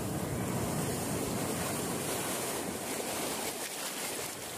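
Sea surf breaking over rocks, with foaming water washing through the gaps: a loud, steady rush that eases slightly near the end.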